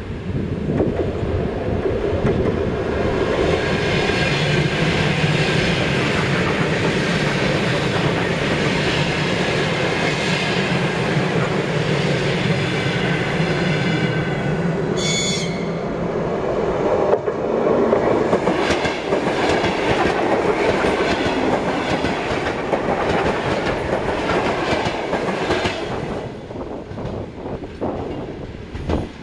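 Train passing close by: a steady rumble of wheels on rails with repeated clicking as the wheels cross rail joints, and a brief high-pitched tone about halfway through. It fades in the last few seconds.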